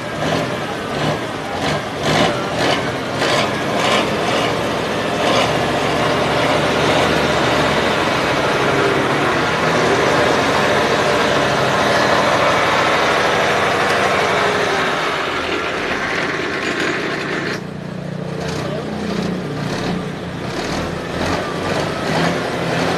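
Dump truck's diesel engine running steadily, with a loud hiss over it that cuts off suddenly about seventeen seconds in. A few clicks sound in the first seconds.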